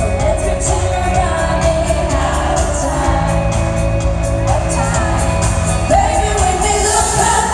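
Live pop concert music: a lead vocal sung over a band with a steady, bass-heavy drum beat, loud through the arena sound system.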